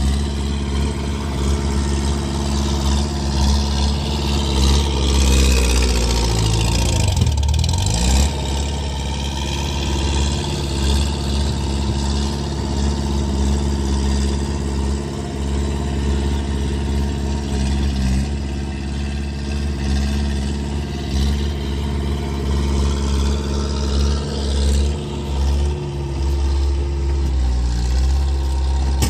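Skid steer engine running steadily under load, its pitch dropping for a moment about seven seconds in and then picking back up. The machine needs a new exhaust.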